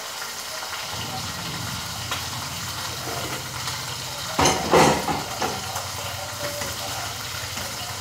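Pork chops sizzling in a frying pan, a steady hiss. About halfway through, a metal pot lid clatters as it is lifted off a pot of rice and beans.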